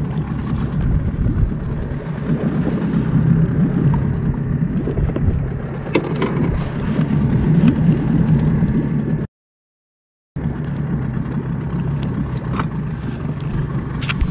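Fishing boat's engine running steadily as a low rumble, with a few scattered clicks and knocks; the sound cuts out completely for about a second some nine seconds in.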